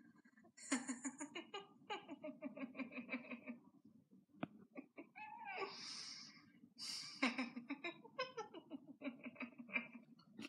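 A person giggling in two long runs of quick, high-pitched 'ha-ha' bursts, with a breath drawn in between them.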